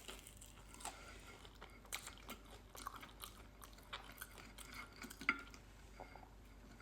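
A person chewing food close to the microphone, faint, with scattered soft crunches and small clicks.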